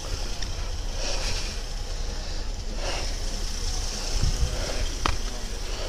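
Steady low rumble of idling vehicles, with soft rustling from the moving camera and a faint click about five seconds in.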